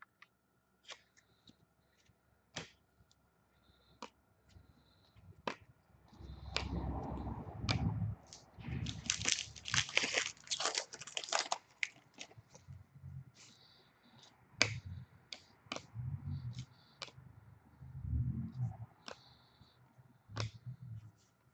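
Trading-card pack wrapper being torn open and crinkled, loudest for a couple of seconds near the middle. Around it are light clicks, taps and soft knocks of cards being handled and shuffled on a table.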